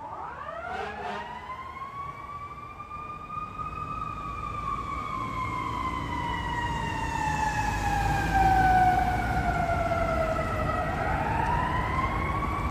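Fire engine siren winding up steeply over the first few seconds, sliding slowly down in pitch, then winding up again near the end. Under it is a low traffic and engine rumble that swells to its loudest about two-thirds of the way through.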